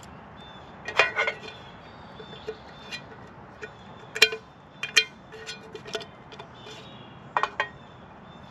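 Sharp metal clicks and clinks of a camping frying pan being handled: its detachable gripper handle clipping on and off and the pan knocking against the grate of a portable gas stove. The strikes come singly and in quick pairs, each ringing briefly.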